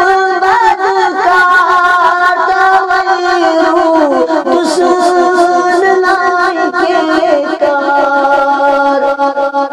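A man singing a Kashmiri naat in a high voice with quick, wavering ornaments. His pitch slides lower around the middle and he holds a long note near the end.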